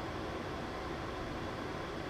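A steady, even rushing noise that does not change in level or pitch.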